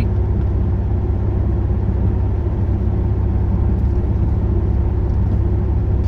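Steady low drone of a Pontiac Grand Prix cruising at constant speed, heard from inside the cabin: engine hum mixed with tyre and road noise, with no change in pitch.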